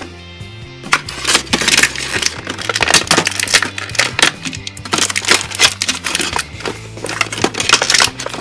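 Loud crinkling and crackling, as of plastic toy packaging being handled close by, starting about a second in, over steady background music.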